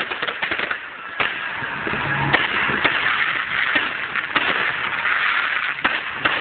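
Fireworks spraying sparks with a continuous hiss, dotted with many sharp crackles and pops.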